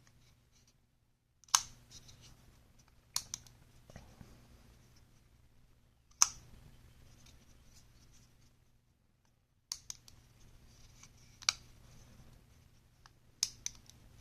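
Spyderco Para 3 folding knife being flicked open and shut, its blade snapping into the compression lock and back with about seven sharp clicks at uneven intervals; the freshly cleaned and lubricated action now moves freely.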